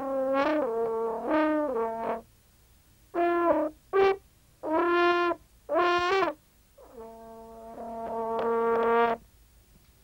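A brass horn being played: a phrase of notes, then four short separate blasts, then one long held note that swells louder and stops about nine seconds in.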